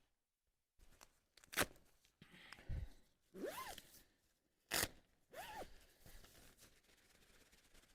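Camping gear being handled: fabric rustling and crunching, two sharp clicks and two short squeaks that rise and fall in pitch.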